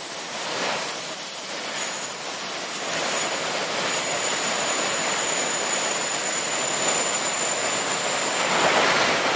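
Floodwater rushing over a dam spillway, a steady roar. A thin, steady high-pitched whistle sits above it and stops near the end.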